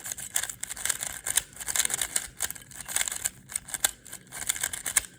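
Rubik's cube being turned quickly and continuously, its plastic layers clicking and rattling many times a second as a repeated algorithm of R wide moves is executed.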